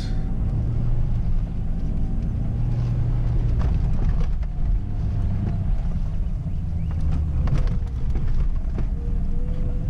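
Suzuki Grand Vitara's engine running under load, heard from inside the cabin, with a steady low drone whose pitch drifts slightly as the revs change. Scattered knocks and rattles come from the car bouncing over the rough track, clustered about a third of the way in and again past the middle.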